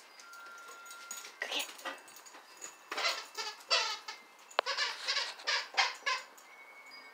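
A dog giving short, whiny barks in three quick clusters, with a single sharp click in the middle.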